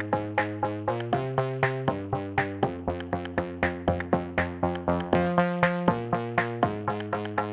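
Background music: electronic synthesizer chords over a steady drum-machine beat of about four to five strikes a second.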